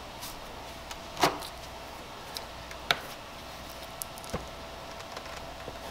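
A few sharp clicks and scrapes, the loudest about a second in, from a knife and gloved hands working at a plastic Lexus SC300 tail light, prying the lens away from the housing's oven-softened sealant.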